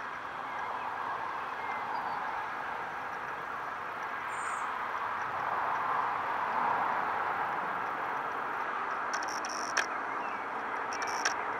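Steady hum of distant traffic that swells slowly towards the middle. Two sharp clicks near the end.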